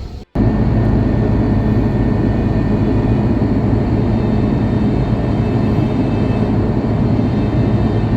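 Airliner engine noise: a loud, steady rumble that starts abruptly just after a brief gap near the start.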